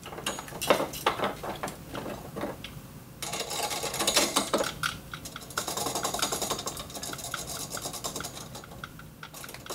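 Metal hardware being fitted and tightened: a soffit U-bolt goes around a steel service mast and its nuts are run on by hand against wood blocking. A few clicks come first, then a long stretch of fast metallic scraping and rattling from about three seconds in.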